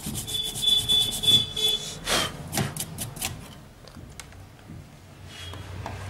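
Stiff-bristled brush scrubbing dust off a computer motherboard in quick repeated strokes, busiest in the first three seconds and thinning out toward the end.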